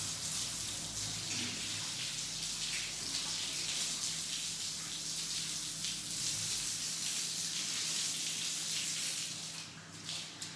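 Water running from a garden hose onto the floor as it is washed down, a steady hiss that stops near the end.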